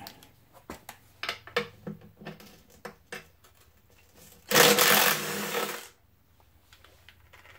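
Light metal clicks and taps from a wrench being fitted onto a nut, then a cordless driver runs once, about a second and a half, spinning out a bolt on a Ford Model T engine while the nut is held.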